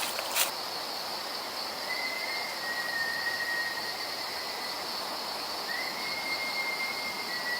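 Two long, faint, level whistles of unknown origin, each about two and a half seconds, the second starting with a short upward slide, over a steady high-pitched insect chorus. A sharp click comes right at the start.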